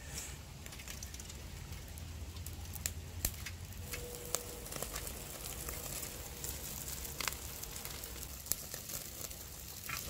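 Charcoal fire crackling and popping in scattered sharp snaps under mackerel grilling on a wire grate, as fat dripping from the fish onto the coals makes the fire flare up.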